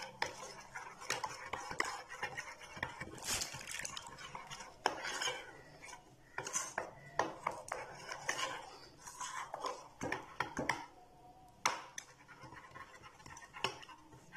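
Metal spoon stirring a thin flour-and-water batter in a ceramic bowl, clinking and scraping against the bowl in quick, irregular strokes.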